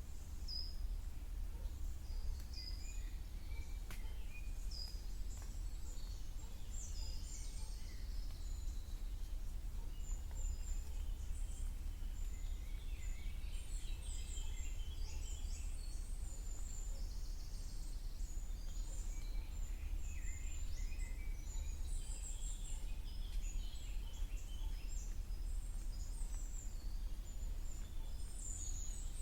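Several songbirds chirping and trilling together in a spring woodland chorus, busiest through the middle and later part, over a steady low rumble.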